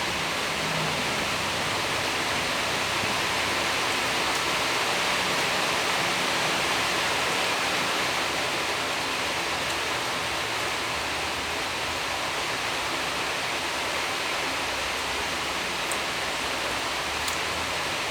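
Steady, even rushing hiss with a few faint ticks near the end.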